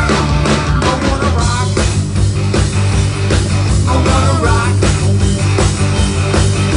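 Live rock band playing loud: electric guitars with bending lead lines over keyboard, bass and a steady drum beat.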